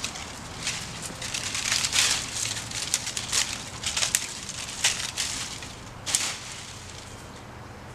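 Dry brush and dead branches crackling and crunching as they are piled and pushed down into a tractor's dump cart, in an irregular run of sharp crackles that is heaviest about two seconds in and again near the end.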